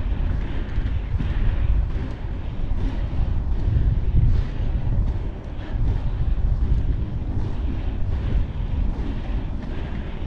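Strong wind buffeting an action camera's microphone, a heavy rumble that swells and dips. Under it, faint regular swishes of inline skate strides on the pavement come about every 0.7 seconds.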